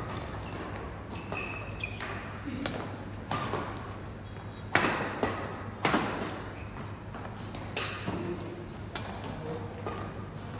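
Badminton rackets striking a shuttlecock in a rally, sharp smacks about every one to two seconds that ring in a large hall, with a few brief high squeaks of shoes on the court floor.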